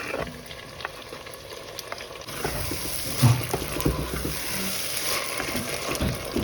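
Onions frying in oil in a pot, sizzling, with stirring and a few low knocks. The sizzle grows louder about two seconds in.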